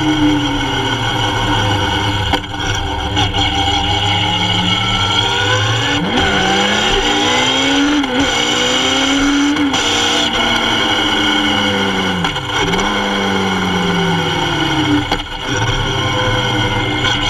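Kawasaki Z750's inline-four engine running while riding, heard close up, its pitch climbing and falling as the bike accelerates and slows, with brief drops about two and a half seconds in and again near the end.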